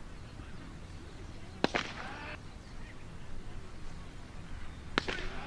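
Two sharp pops of a baseball hitting the catcher's mitt, about three and a half seconds apart, each followed by a short call from the umpire.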